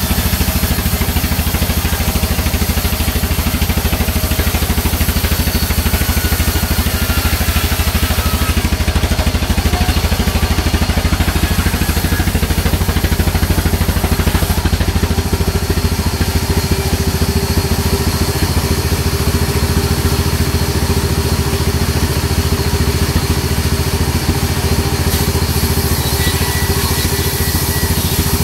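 Large sawmill band saw running steadily as a margosa (neem) log is fed through the blade, a loud continuous mechanical drone with a fast, even rattle underneath.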